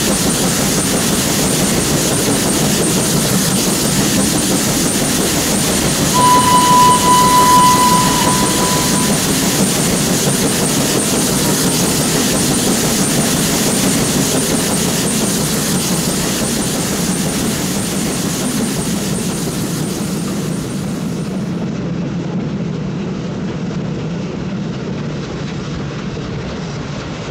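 Steam train running along the track with a steady rumble and rail noise; about six seconds in a whistle sounds one steady note for about two seconds. The running sound fades slowly toward the end.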